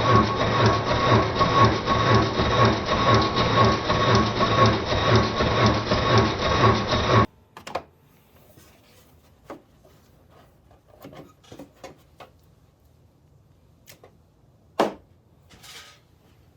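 Daelim a-FOUR 50 scooter's electric starter cranking the engine without it catching: a rhythmic churning with a steady whine, cut off suddenly about seven seconds in. After that it is quiet, with a few light clicks and knocks.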